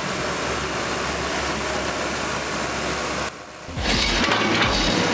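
A steady machine hum for a little over three seconds that cuts off briefly. Then, from about four seconds in, an excavator with a hydraulic concrete pulverizer attachment is working concrete rubble: the machine running over irregular crunching and crackling.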